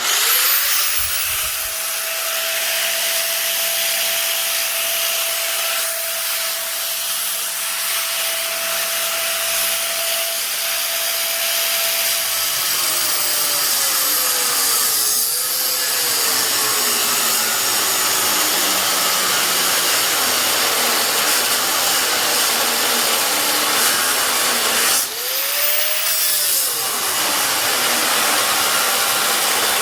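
Angle grinder grinding metal: a steady motor whine over loud grinding hiss, the whine sagging lower from about halfway through as the disc is pressed harder into the work, briefly picking back up near the end before dropping again.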